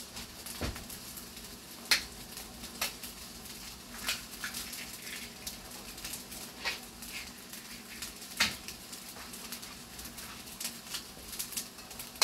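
Eggs being cracked with a kitchen knife blade against the shell: sharp, separate taps every second or two, over a faint sizzle from a skillet of green beans frying on a gas burner.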